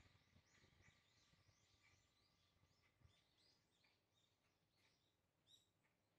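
Near silence, with many faint, short bird chirps scattered throughout.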